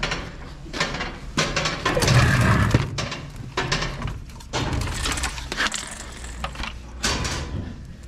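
Irregular knocks, clunks and rustles as a plastic pump-up garden sprayer is grabbed by its handle and carried.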